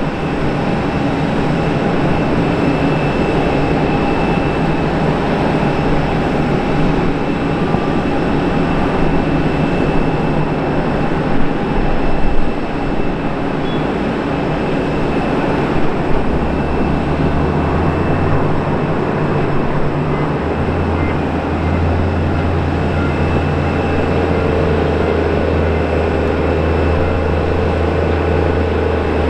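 Rolls-Royce Trent 1000 jet engines of a taxiing Boeing 787: a steady rushing noise with faint whine tones. A low hum joins about halfway through.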